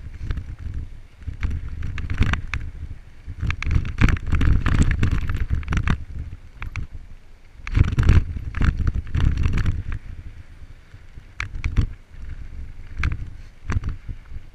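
Wind buffeting the microphone of a camera on a moving mountain bike, in uneven gusts, with the rattle and clatter of tyres running over a rocky dirt trail.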